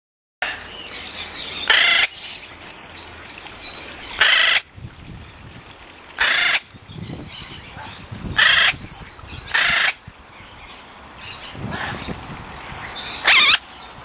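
Hawk-headed parrot giving six loud, harsh calls, each about half a second long, spaced irregularly one to four seconds apart.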